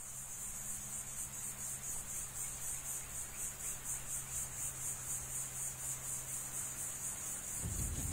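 Crickets chirping in a fast, even pulse over a low steady hum. A deep rumble begins to build near the end.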